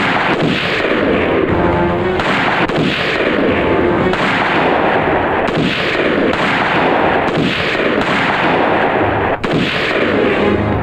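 The same stock film gunshot sound effect fired again and again, a sharp bang with a short fading tail repeating about every two-thirds of a second, over background film music.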